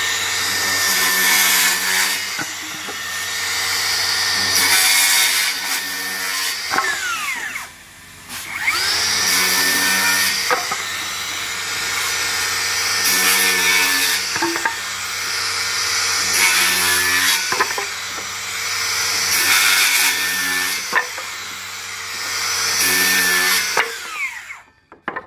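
Cordless circular saw crosscutting timber lengths one after another, the motor whining up to speed and the blade running on between several loud cuts. It spins down about seven seconds in, restarts, and winds down to a stop near the end.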